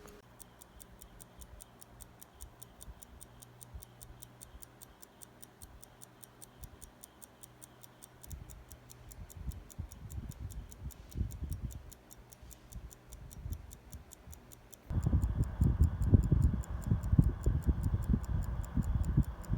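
Repaired Soviet mechanical stopwatch ticking in a fast, even, crisp rhythm. After its lost pallet-fork jewel was refitted and the movement serviced, it is running well with its balance amplitude restored. Low rumbling bumps come in partway through and grow much louder near the end.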